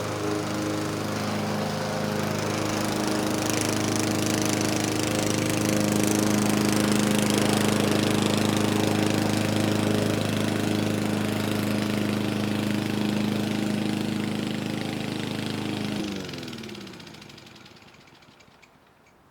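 Lawn mower engine running steadily, then cut off about sixteen seconds in, winding down with falling pitch and fading out as it stops.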